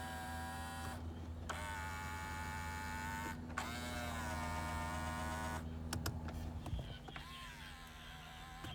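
Electric side-mirror adjustment motors of a 2005 Volkswagen Jetta whirring in three runs of about two seconds each, with short pauses between them, over a steady low hum. A few clicks follow near the end as the hum fades.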